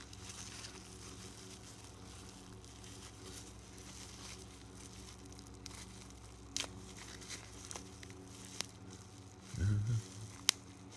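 Bubble wrap being crinkled and peeled off a small USB charger by hand, with a few sharp crackles. There is a short low thump near the end, followed by a click.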